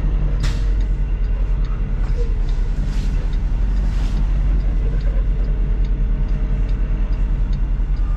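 Semi truck's diesel engine running at low speed, heard from inside the cab as a steady low rumble, with a few light clicks now and then.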